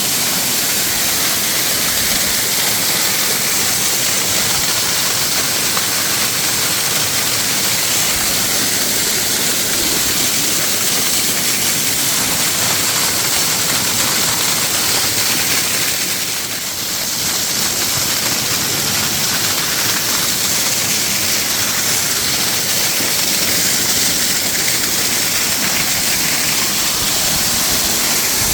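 Waterfall: a steady, loud rush of falling water, dipping briefly about two-thirds of the way through.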